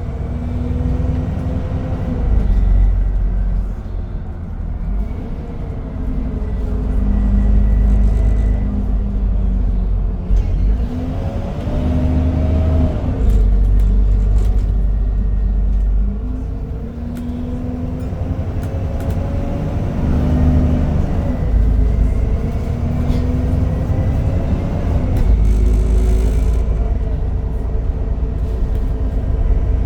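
ADL Enviro 400 Trident double-decker bus on the move, its engine rumbling low with whines that rise and fall several times as it speeds up and slows, over the steady drone of its cooling fan.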